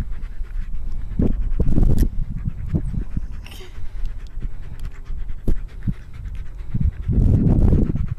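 A dog panting close up with its mouth open in rapid, repeated breaths, loudest about a second in and near the end; the dog is tired and overheated after running.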